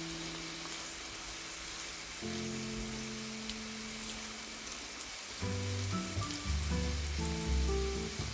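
Food frying in a pan, sizzling steadily with faint crackles, under background music: held chords at first, then a busier bass and melody line from about five and a half seconds in.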